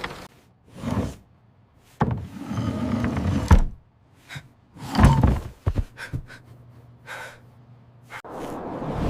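A string of separate knocks, thuds and clatters, like doors and objects being shut and moved, with a few quick clicks in the middle and short quiet gaps between.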